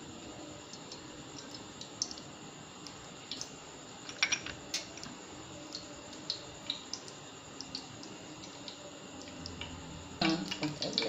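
Cooking oil heating in a kadai, with scattered small pops and crackles. About ten seconds in, cumin and asafoetida are dropped into the hot oil and it breaks into a sudden, louder sizzle.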